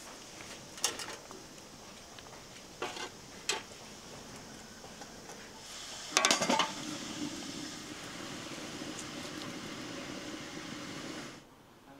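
Dishes and utensils clinking in a few separate knocks, then a louder clatter about six seconds in, followed by a steady hiss that cuts off suddenly near the end.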